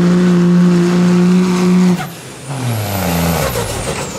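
Street-class diesel pickup truck pulling a sled at full throttle with a steady, loud engine note. About two seconds in, the throttle is lifted: the engine winds down in pitch while a high turbo whine slowly falls away.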